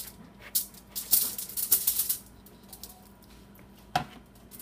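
Almond-flour-coated zucchini sticks poured out of a bowl onto aluminum foil on a baking sheet: a dense burst of foil crinkling and rattling lasting about a second and a half, then lighter scattered rustles as the sticks are spread out by hand, and one sharp tap near the end.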